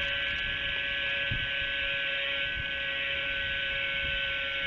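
Small camera-carrying UAV's electric motor and propeller running at a steady speed, a high, even whine with no change in pitch.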